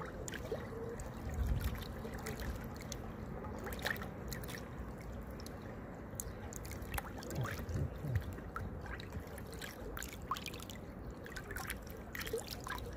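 River waves lapping and splashing at the water's edge, with many small splashes and drips scattered through.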